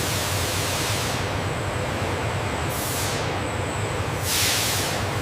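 Steady factory machinery noise with a low hum, and a hiss of air swelling up and dying away about every second and a half, three times.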